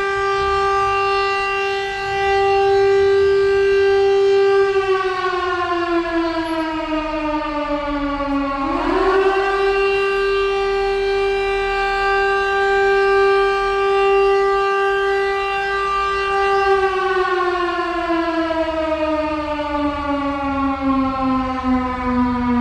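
Civil-defence emergency alert siren sounding a loud, steady wail. Its pitch sags slowly from about five seconds in, swoops quickly back up about nine seconds in, holds, then sags again from about seventeen seconds in. Locals told the listeners it is a routine practice sounding of the alarm.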